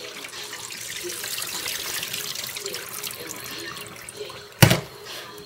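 Kitchen faucet running into a stainless steel sink while raw shrimp are rinsed in a glass bowl under the stream. A single sharp knock near the end.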